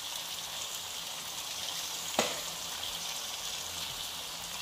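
Chili paste with onion and garlic frying in hot oil in a metal wok, a steady sizzle, with one sharp tap of the spatula on the wok about two seconds in.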